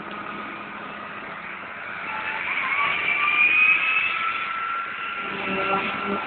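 Tractor and forage harvester engines running while a tractor towing a silage trailer drives past close by, growing louder in the middle with a whine that rises in pitch. Near the end a second tractor engine comes in lower underneath.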